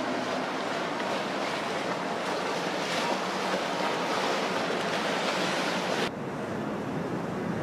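Steady rush of water and wind on the microphone from a boat under way. About six seconds in it changes abruptly to a quieter, duller rush.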